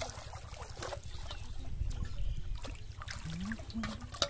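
Pond water splashing and trickling as a person wades and lifts plastic bottles out of the water, in short irregular splashes over a steady low rumble.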